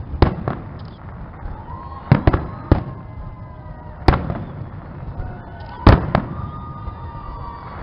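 Fireworks display: a string of sharp aerial shell bangs, about eight, irregularly spaced, the loudest about four and six seconds in.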